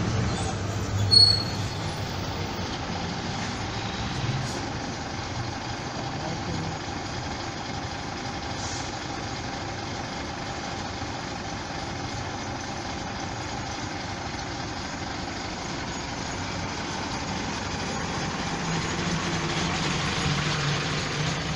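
Metalpar-bodied city bus's diesel engine running at a steady low rumble as it draws up to the stop and waits, growing louder near the end as it pulls off past. A short sharp squeak about a second in.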